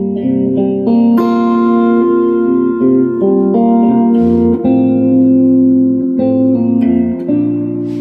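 Improvised instrumental music: long-held notes and chords that change every half second to a second, over a low bass note that drops in and out.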